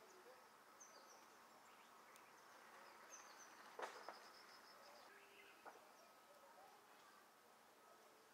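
Near silence: faint background ambience with a few short high chirps and two sharp clicks about four seconds in.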